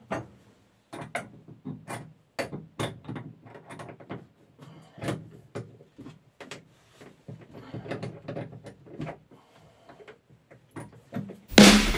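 Metal spanner clicking and clinking on a pipe fitting as it is tightened: a string of irregular sharp clicks, a few a second. Loud music comes in just before the end.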